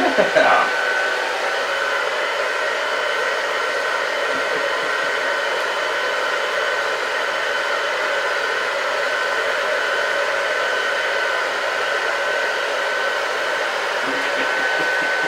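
Handheld hair dryer running steadily, a constant high whine over the rush of its air.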